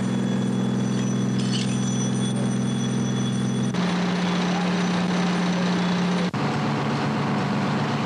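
Heavy engine running steadily with a constant low drone, which changes abruptly twice, about four and about six seconds in.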